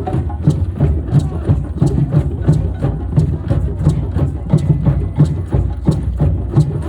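Several drums played together in a steady, driving rhythm, with deep low strokes and sharp slaps repeating evenly.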